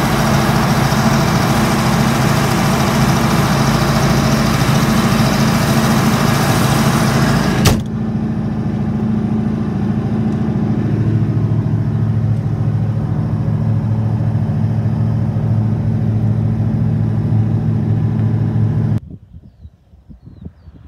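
John Deere 8850 tractor's V8 diesel engine running steadily under ploughing load, heard from inside the cab as a loud drone with hiss. About eight seconds in there is a sharp click, after which the hiss drops away and the engine sounds more muffled and lower. Near the end the sound falls suddenly to a much quieter outdoor background.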